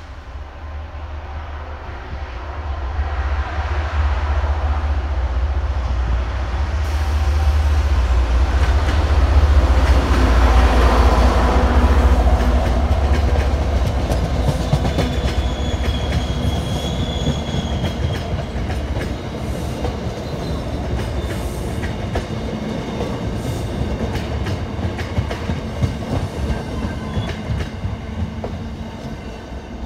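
An MBTA commuter train passing close by. A deep low rumble builds and peaks as the head end comes through, then the coaches roll past with a steady clickety-clack over the rail joints and a brief high squeal partway through, fading near the end.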